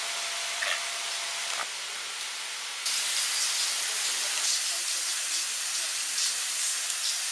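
Steady outdoor hiss that jumps louder and brighter about three seconds in, where the recording cuts. A few faint short calls sound in the first part.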